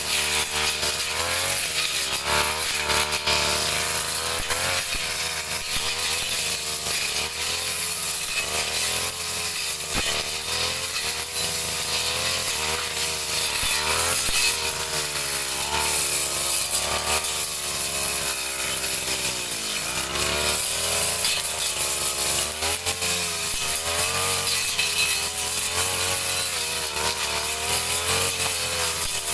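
Two-stroke brush cutter engine running continuously while cutting grass, its pitch wavering up and down as throttle and load change.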